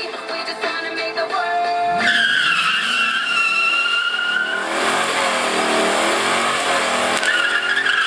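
Music for about two seconds, then a late-model Ford Mustang doing a drag-strip burnout: its rear tyres spin and squeal with a loud, steady high screech while the engine revs, heating the tyres before a launch.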